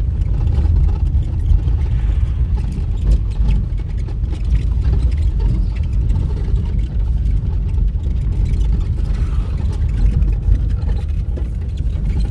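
Steady low rumble of a moving vehicle: engine and road noise with no clear pitch, sustained throughout.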